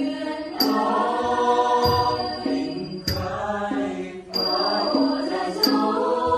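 Choir singing practice: voices holding long sung notes that change pitch every second or so. A sharp tick comes about every 1.25 s, in time with the singing.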